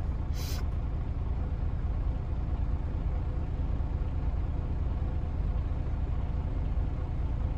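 Semi truck's diesel engine idling, a steady low rumble heard from inside the cab.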